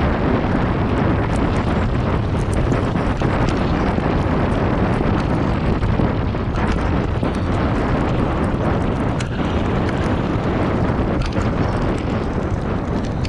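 Wind buffeting the camera microphone and bicycle tyres rolling fast over a dirt trail, a steady low rumble with many scattered small clicks and rattles.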